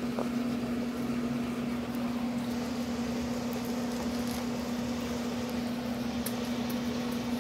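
A steady machine hum holding one constant low tone, with a few faint clicks in the last few seconds.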